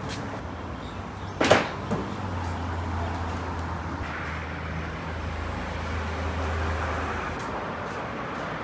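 A long metal poker clanks against the tandoor as the coals are stirred: one sharp, ringing knock with a lighter one just after. A steady low hum follows, joined partway through by a rushing noise.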